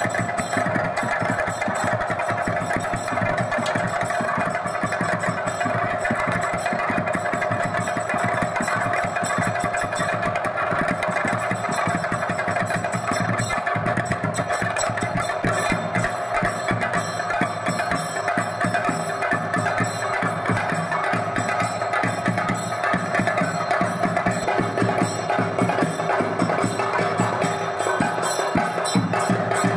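Fast, continuous drumming for a temple ritual, with a steady ringing tone held over the strokes.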